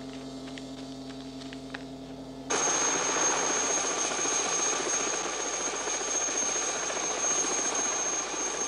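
A held low brass chord from the film score, cut off abruptly about two and a half seconds in by the steady engine and rotor noise of a helicopter in flight, heard from inside the cabin with a thin high whine over it.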